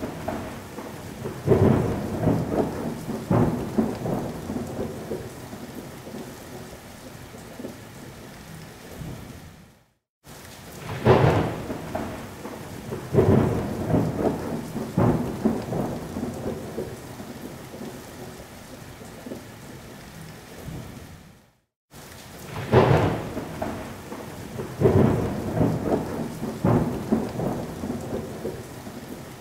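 Thunderstorm recording: a few sharp thunder cracks, then rumbling that fades away over steady rain. The same stretch repeats as a loop about every 12 seconds, with a short break of silence before each repeat.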